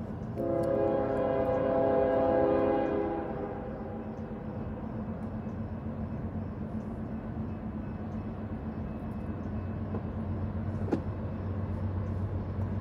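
Norfolk Southern diesel locomotive's air horn sounding one chord of several notes for about three seconds as the train approaches the grade crossing. Then the locomotive engines run steadily at a low pitch, growing stronger near the end as the train nears.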